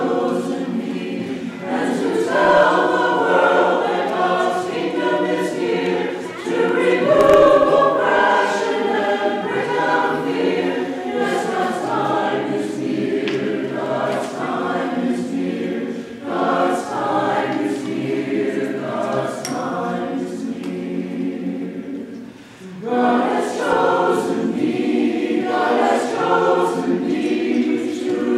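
Mixed choir of men's and women's voices singing a hymn in harmony, with a short break between phrases about three quarters of the way through.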